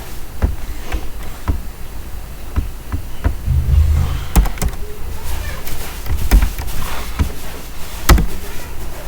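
Scattered clicks and knocks from a computer mouse and keyboard being used at a desk, at uneven intervals over a low hum, with a heavier low rumble about three and a half seconds in.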